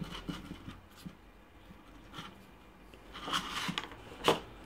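Quiet handling sounds from an Iseki KF340 engine's recoil starter and its rubber pull handle, freshly fitted with a new cord: light scrapes and taps, then one sharp click about four seconds in.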